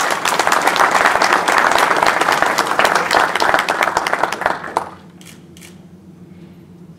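Audience applauding, dense clapping that dies away about five seconds in, leaving a few isolated clicks.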